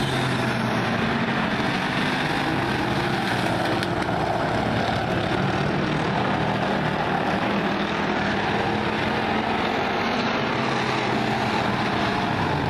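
Several pure stock dirt-track race cars' engines running together as the cars lap the oval: a steady, continuous engine drone with no break.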